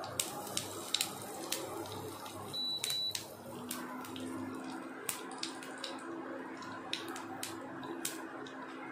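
Hot oil sizzling in a frying pan with cumin and mustard seeds crackling in scattered sharp pops, the tempering (tadka) stage of the cooking. A short high beep sounds about three seconds in, and a low steady hum starts soon after.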